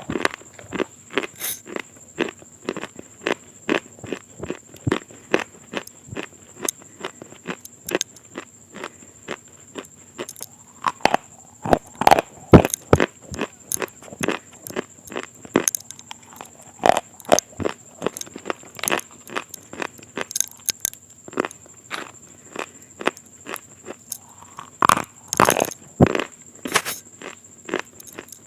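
Close-miked ASMR eating of crunchy food: sharp, irregular bites and chewing crunches, several a second, with louder clusters of crunches about halfway through and near the end.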